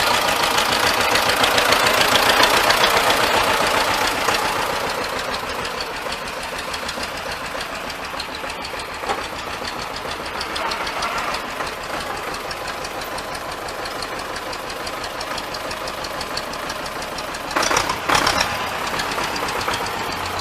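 T-25 tractor's two-cylinder air-cooled diesel engine running with a rapid, even knock of its firing strokes, a little louder in the first few seconds and then steady. A brief louder noise rises over it near the end.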